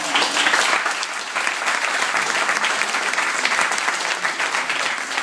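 A small audience applauding, many hands clapping together; it starts suddenly and stays steady.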